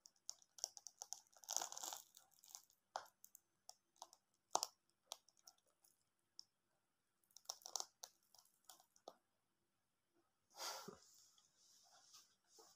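Large durian being prised open by hand: irregular crunching and tearing of the spiky husk as it splits apart, with a handful of louder cracks spread through.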